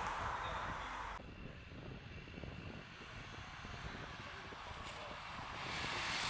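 Outdoor ambient noise: a steady rushing noise that cuts off abruptly about a second in, then low rumbling, with another rush rising near the end.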